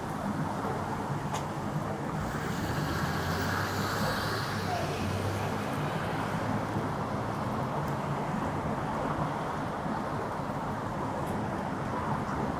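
City street traffic, with a motor vehicle passing by a couple of seconds in.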